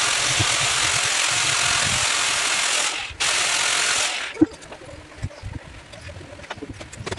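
Corded electric drill running hard in two bursts: about three seconds, a brief stop, then about a second more, then a single knock.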